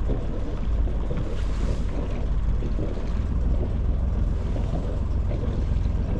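Sailing yacht's Volvo Penta inboard engine ticking over in astern as the boat backs out of its berth, a steady low running sound mixed with wind rumble on the microphone.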